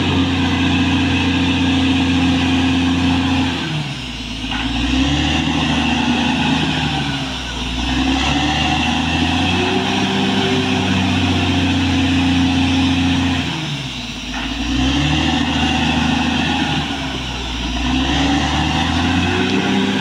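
Caterpillar D6R XL crawler bulldozer's diesel engine running loudly. Its pitch sags and climbs back twice, about ten seconds apart.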